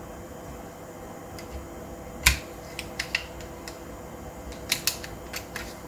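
Clicks and knocks from small parts of a Hi-Capa gas blowback pistol being handled and fitted during reassembly. There is one sharp, loud click a little over two seconds in, a couple of lighter clicks about a second later, and a quick run of clicks near the end.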